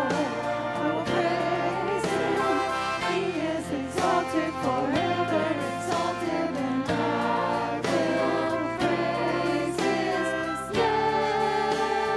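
Christian worship music: singing voices over instrumental accompaniment with a steady beat.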